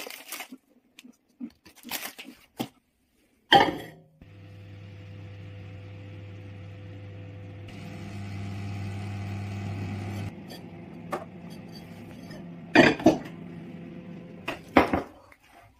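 Microwave oven running with a steady hum, after a loud click about three and a half seconds in as it is shut and started; the hum stops about ten seconds in. Clunks of the microwave door and the ceramic bowl being handled follow near the end.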